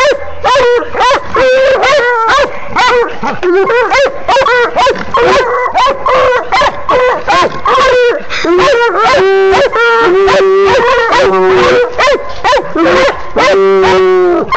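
Several coonhounds barking and yipping excitedly in rapid, overlapping calls, several a second, at an animal held in a cage trap. From about two thirds of the way through, some calls are drawn out longer and lower, with one long bawl near the end.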